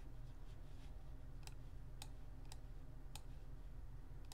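Computer mouse clicking: about five sharp single clicks, roughly half a second apart, starting about a second and a half in, over a low steady hum.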